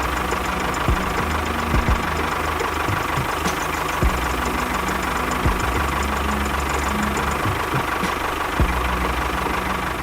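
Engine idling steadily with a knocking beat, plus a few short low thumps.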